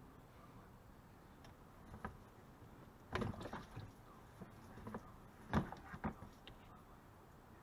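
Scattered knocks and clatter of a rubber radiator hose being worked loose and pulled up out of a van's engine bay, the loudest a little after three seconds in and again at about five and a half and six seconds.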